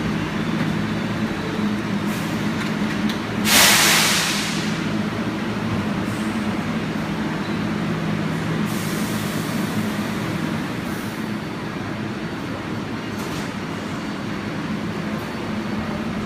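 R188 subway train pulling out past the platform, its motors and wheels making a steady hum with low tones. About three and a half seconds in comes a loud hiss of released air, and fainter hisses follow later.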